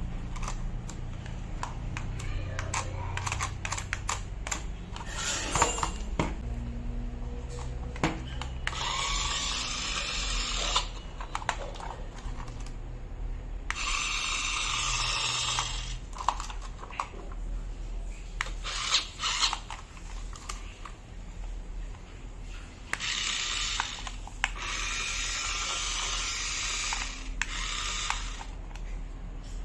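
Small electric motor of a toy remote control car running in three bursts of a few seconds, around clicks and knocks of hard plastic being handled.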